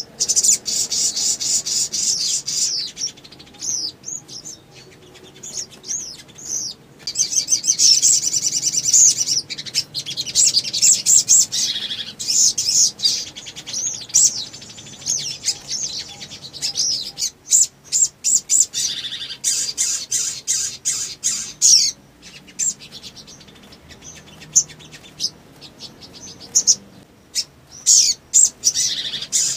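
Male sunbird (sogon) singing long, rapid runs of high-pitched chirps and trills, with short pauses between bursts.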